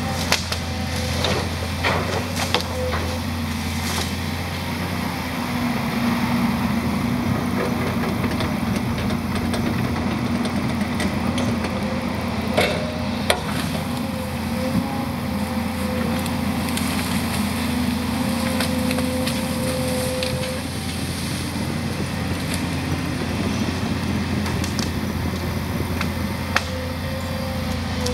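Volvo 210 excavator's diesel engine running steadily under working load while it stacks brush, with a few sharp cracks of branches snapping and splintering, the loudest about halfway through.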